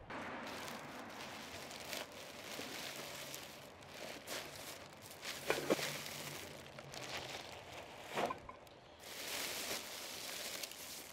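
Black plastic rubbish bags rustling and crinkling as they are handled and dropped into a waste cart, with a few sharp knocks midway.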